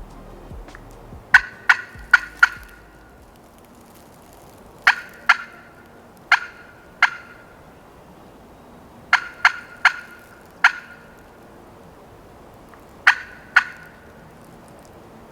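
Turkey cutting: sharp, loud clucks in irregular bursts of two to four, with pauses of a second or more between bursts.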